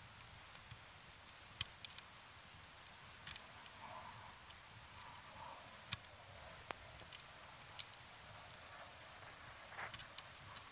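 Screwdriver tip clicking against the screws and breaker plate inside an open distributor on a MerCruiser 3.0L engine: a handful of sharp, separate clicks a second or two apart, the loudest about six seconds in.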